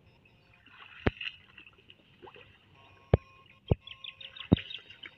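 Soft splashing and rustling as someone wades and reaches through shallow water and aquatic plants, cut by four sharp clicks about a second apart. Near the end a quick run of short high ticks sounds as well.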